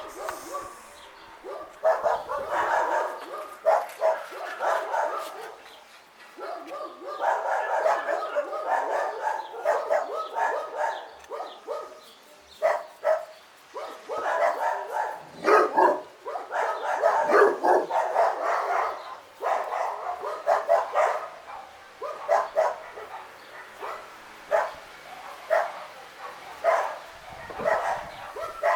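A dog barking and yipping repeatedly in clusters of short barks.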